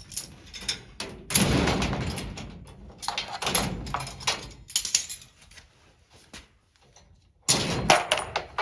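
Clamps being released and a plastic rocker panel being pulled off the race car's sheet-metal door, with clicks and a few loud clattering knocks and rattles of the flexing panel.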